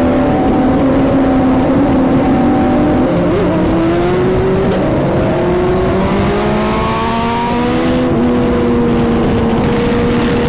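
Kawasaki Versys 650's parallel-twin engine cruising at highway speed under heavy wind rush. Its note climbs over a few seconds midway, then holds steady.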